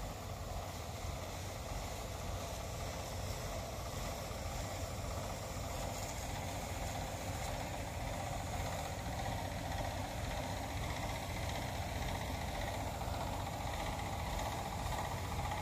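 Tractor engine running steadily to drive the pump for a long-range orchard spray gun, with a steady hiss over it.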